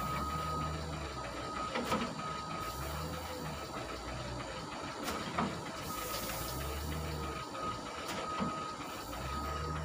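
Wheel loader's diesel engine rising and falling as it works its bucket over a load of stone chips on a lorry, with a high steady whine that comes and goes and a few sharp knocks.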